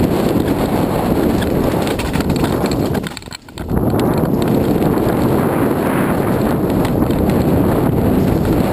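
Wind buffeting the microphone and tyres rumbling over a gravel forest trail as a mountain bike descends at speed, with scattered knocks and rattles from the bike on rough ground. The noise drops out sharply for about half a second a little past three seconds in.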